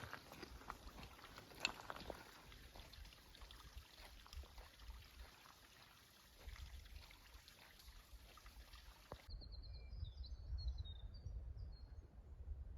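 Faint footsteps and scattered clicks of a hiker walking on a rocky mountain trail. About nine seconds in the sound changes abruptly to wind buffeting the microphone, with a few short high chirps.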